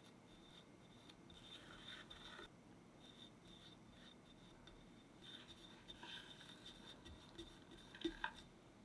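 Soft scraping of a spatula spreading cream over a cake, in short passes. Two sharp clicks near the end.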